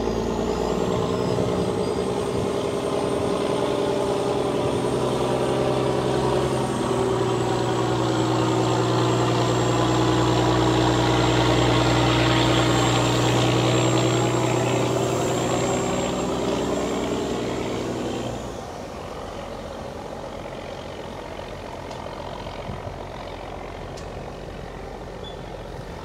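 Fishing boat's marine diesel engine running hard at close range, with a high-pitched whine over the engine note. About eighteen seconds in the engine sound drops off sharply, leaving a quieter wash of water and distant engine.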